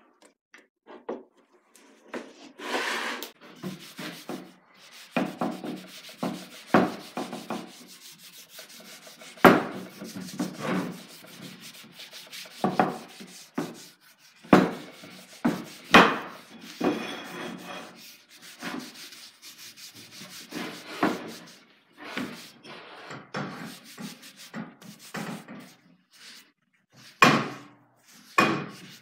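Cloth rag rubbing boiled linseed oil into a hickory ax handle, in irregular wiping strokes. A few sharp knocks stand out, the loudest about ten and sixteen seconds in and near the end.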